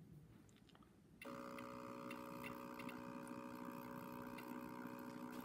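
Small flywheel DC motor on an ESU decoder tester, driven by a Lenz DCC decoder, starting up about a second in and running slowly with a steady whine and irregular ticking. The rough, jerky running is the sign of a motor-control problem in the decoder.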